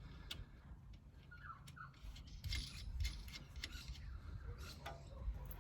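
Scattered light metallic clicks and clinks of hand tools and bolts during work on a backhoe's engine, over a low steady rumble.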